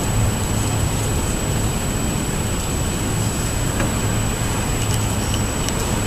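Steady outdoor background noise with a low rumble and a few faint ticks.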